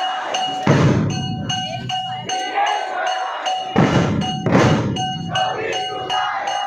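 Percussion music: metallic strikes with a ringing tone repeat about two to three times a second, and a heavy low drum booms twice, about a second in and again near four seconds.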